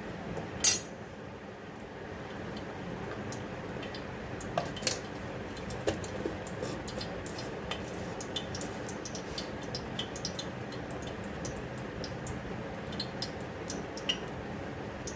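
Ghee heating in a kadhai, crackling with scattered light ticks that grow more frequent, over a steady low hum; one sharp metal clink comes about half a second in.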